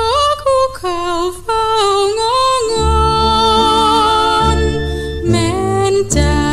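Thai luk krung song: a woman singing with vibrato over band accompaniment with a steady bass line, the notes short and bending at first, then held longer from about three seconds in.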